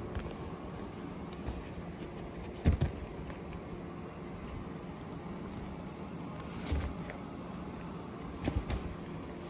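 Kittens scrambling about in a fabric cat play tunnel: a few brief rustles and scratches, the sharpest near three seconds in, over a steady low hum.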